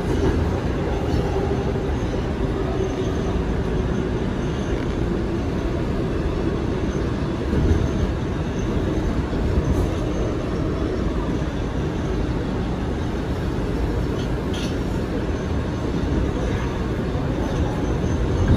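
Kawasaki R211A subway car running between stations, heard from inside the car: a steady rumble of wheels on the rails and running gear, with a few brief clicks.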